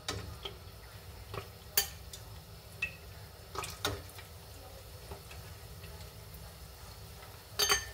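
Panko-breaded chicken pieces frying in hot oil with a steady sizzle, and sharp clicks of metal tongs against the bowl and pan as pieces are picked up and set into the oil; the loudest clatter comes near the end.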